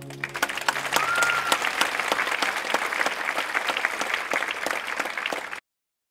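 Theatre audience applauding, dense clapping over the last held notes of the music, which fade out in the first second and a half. The applause cuts off suddenly near the end.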